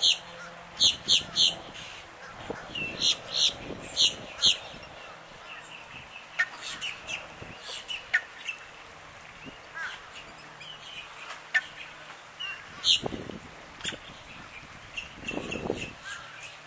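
Black-bellied whistling ducks calling: short, high whistles in quick clusters of three or four, thickest in the first few seconds and again about two-thirds of the way through. Near the end, a duck bathing splashes in the water.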